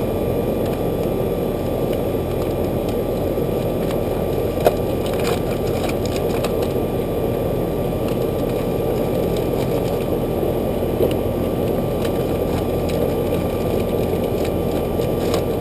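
A 28-year-old central air conditioner's outdoor condensing unit running steadily, compressor and condenser fan both on. The compressor was only got going with a 5-2-1 hard-start kit. One short knock about five seconds in.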